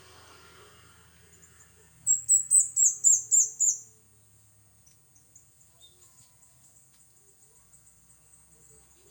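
A bird calling: a quick run of about eight high, downward-slurred notes about two seconds in, lasting under two seconds, followed by faint high chips.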